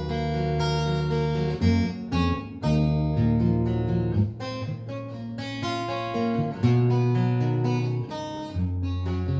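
Steel-string cutaway acoustic guitar playing an instrumental passage of ringing chords over a moving bass line, plucked and strummed, with no voice.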